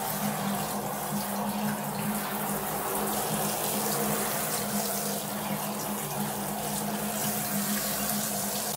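Water spraying from a handheld shower head onto a cat's fur: a steady hiss of running water with a low hum beneath it.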